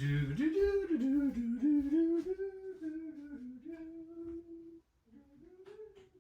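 A person humming a tune in held, stepping notes, loudest over the first three seconds and then fainter.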